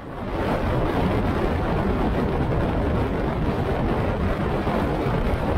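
Steady rush of wind and traffic noise heard from a moving velomobile, with a truck and a van driving close alongside.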